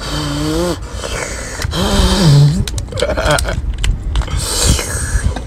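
A man's short wordless vocal sounds, hums and drawn-out exclamations, three times, over a steady low rumble, with a few sharp clicks in between.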